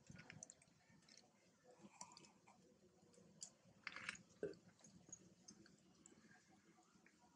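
Macaque biting and chewing corn kernels off a cob: faint crunching with scattered small clicks, and one louder crunch about four seconds in.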